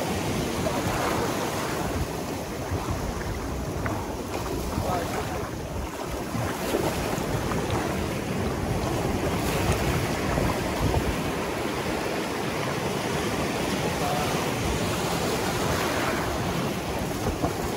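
Shallow ocean surf washing and foaming over sand in a steady rush, with wind buffeting the microphone.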